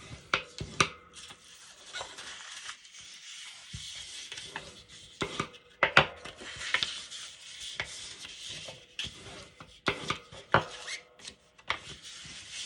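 Scored paper being folded along its score lines and creased flat: long rubbing strokes along the folds, broken by sharp crackles and taps of the stiff paper about half a dozen times.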